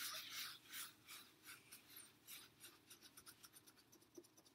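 Wet paper towel scrubbing dried paint off window glass: a run of faint rubbing strokes that grow quicker and softer toward the end.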